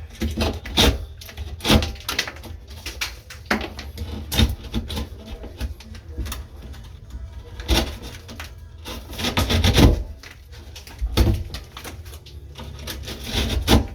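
Utility knife cutting sheetrock: irregular scraping strokes and knocks, thickest around the middle and near the end, over a steady low hum.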